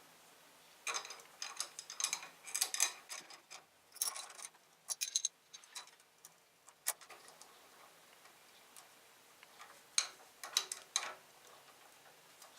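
Small metal spanners clicking and tapping against two nuts as they are tightened against each other on a threaded shaft. The clicks come in several short bunches, with a pause in the middle before a last bunch near the end.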